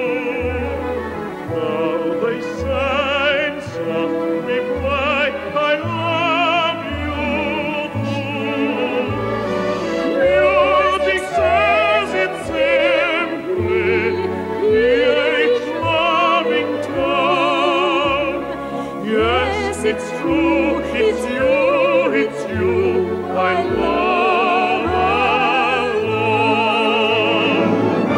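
Operatic singing with a wide vibrato over an orchestral accompaniment, a continuous song performance.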